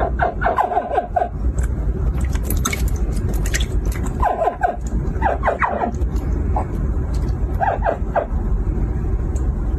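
Hatchling crocodiles chirping: short, falling yelps in several quick clusters, over a steady low rumble.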